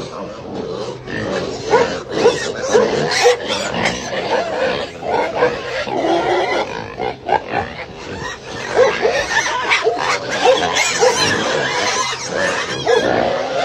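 Several pigs grunting and oinking close up, many short calls one after another.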